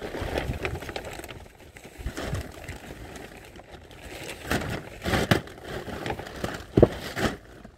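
Firewood rounds being picked up and handled by hand: irregular rustling, scraping and wooden knocks, with one sharp knock near the end.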